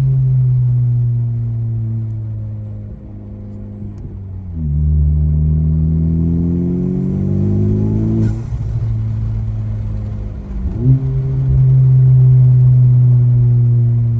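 10th-gen Honda Civic's turbocharged four-cylinder engine pulling under acceleration, its pitch climbing and then dropping at gear changes about a third of the way in and again past the middle, settling to a steady drone near the end.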